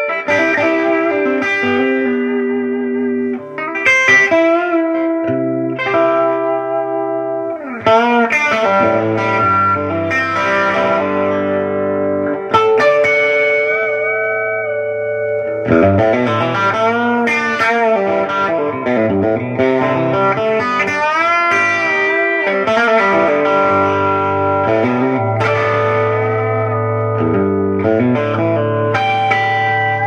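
Fender American Special Telecaster with stock Texas Special pickups played through a Fender Deluxe Reverb Tone Master amp set near volume 6½ and attenuated to 0.5 watts. It plays ringing chords and lead lines with string bends, with new chords picked every few seconds.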